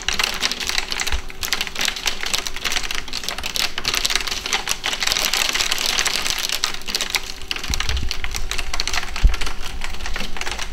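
Hailstones pelting the window glass and pavement in a dense, rapid clatter of small ticks, with a low thud a little after nine seconds in.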